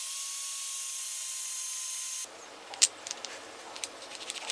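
Angle grinder disc grinding a small steel rod spinning in a drill press chuck: a steady hiss with a high whine that cuts off suddenly a little over two seconds in. After it come a few light, sharp clicks of a small metal pin being handled in a switch lever.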